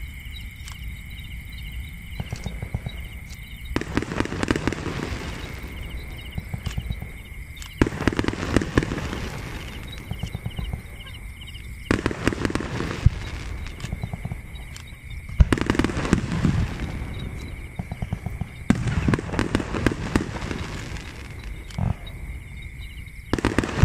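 Aerial fireworks going off in a series of bursts about every four seconds. Each burst is a spell of sharp pops and crackling, then dies away.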